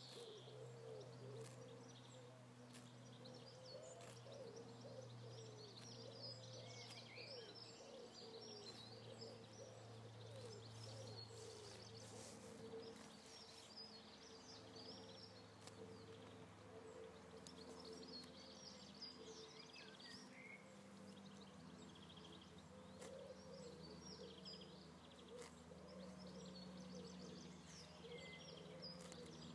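Faint outdoor ambience: small birds chirping and twittering on and off, over a low steady hum, with a few soft clicks.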